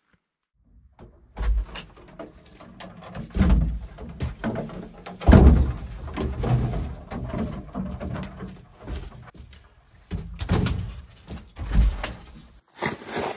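Knocks, thumps and rattles of a person moving about inside a small log cabin and handling things, with a wooden plank door shut along the way. Silent for the first second, then a run of sharp knocks with several heavy thumps, the loudest about five seconds in.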